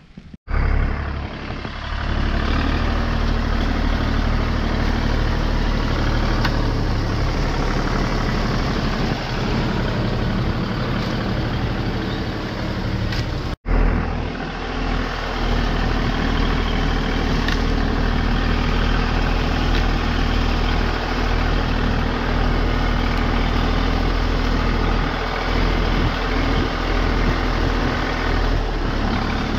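Zetor tractor's diesel engine running steadily, the sound breaking off for an instant twice.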